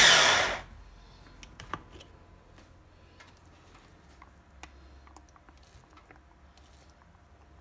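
Electric food chopper whirring briefly as it finishes a short pulse grinding soaked walnuts, stopping within the first second. After that come scattered light clicks and taps of the plastic chopper bowl as the coarsely ground walnuts are checked by hand.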